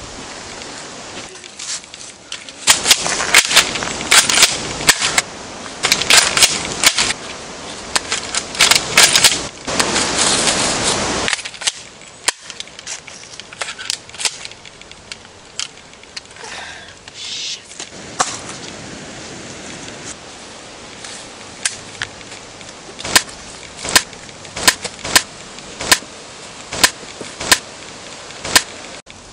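Gunfire: a dense burst of rapid shots lasting several seconds, then scattered shots, then a steady run of single shots about three every two seconds near the end.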